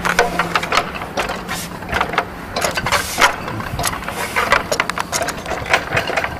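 Irregular knocks, clicks and rattles of a cable technician's climbing gear and tools against a wooden utility pole as he climbs it, with a low hum under the first couple of seconds.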